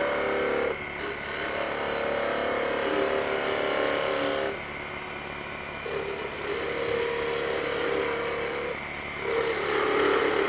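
A 3/8-inch spindle gouge cutting a small bead into a wooden spatula blank spinning on a wood lathe. It comes in several cuts a few seconds long with short pauses between, each with a steady mid-pitched whine, over the lathe's steady hum.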